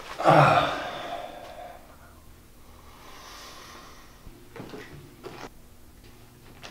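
A man's heavy, breathy sigh at the start, fading out over about a second and a half, then quiet with a few faint small movement sounds.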